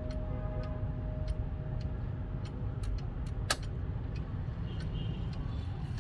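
ODO 36 chiming clock's movement ticking evenly, about two to three ticks a second, with one sharper click about halfway through. Over the first two seconds the last notes of its chime rods die away, under a steady low rumble.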